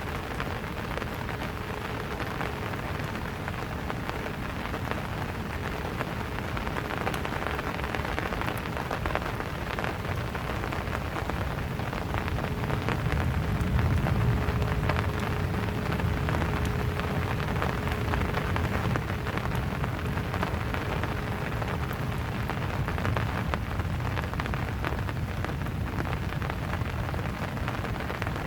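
Steady rain falling, with many small ticks of individual drops striking close by. A low rumble swells about halfway through and slowly fades.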